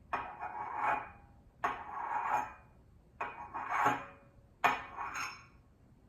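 A glass nail polish bottle scraped and knocked against a surface in four strokes about a second and a half apart, each a sharp clink followed by a short grating rasp. It stands in as foley for a knife cutting food.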